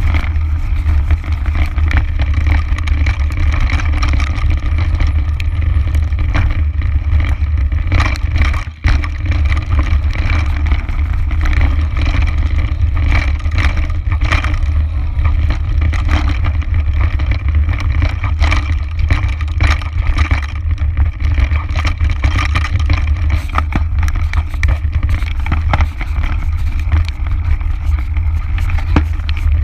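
Mountain bike riding over a dirt and rock trail, heard through a camera mounted on the bike: a steady low rumble of wind and frame vibration, with frequent rattles and knocks as the tyres and drivetrain go over rough ground.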